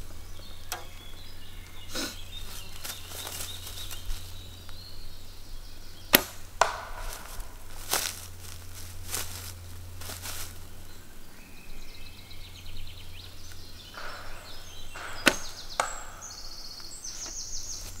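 Bowstring released twice as wooden arrows are shot, two sharp snaps about nine seconds apart, with lighter rustles of footsteps on dry leaves between them.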